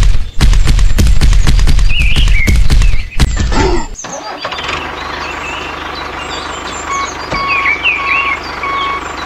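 Tractor engine sound effects: fast, heavy knocking for about three seconds, then a brief rising sweep and a steady low engine hum. A beeping alarm comes in midway, repeating a little under twice a second, with short chirps above it.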